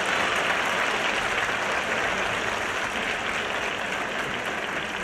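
Spectators in an arena applauding after a rally: a dense, even clapping that slowly fades.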